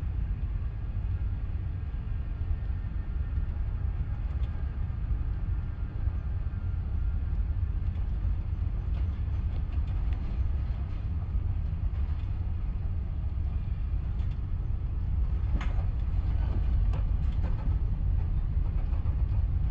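Steady low rumble inside the cabin of a Boeing 777-300ER rolling on the ground just after landing, with a few rattles near the end.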